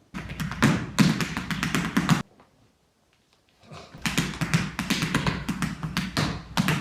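Rapid clattering taps in two bursts over a low hum. The first burst stops abruptly about two seconds in, and the second starts about four seconds in.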